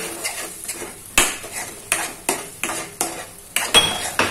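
Steel spoon stirring and scraping thick frying masala in a nonstick kadai: short clinks and scrapes against the pan about three times a second, over a light sizzle of the spice paste cooking in oil.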